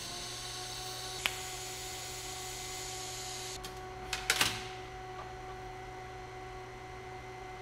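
TIG welder humming steadily, with a single sharp click about a second in and a quick cluster of clicks and taps about four seconds in.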